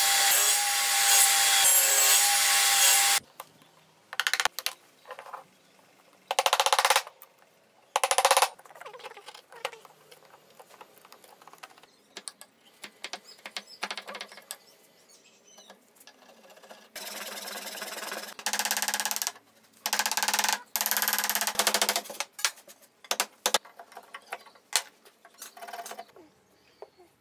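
Table saw running and cutting wood, cutting off about three seconds in. After that, scattered short taps and scrapes of a chisel paring wood out of a joint, broken by several louder scraping strokes of up to two seconds each.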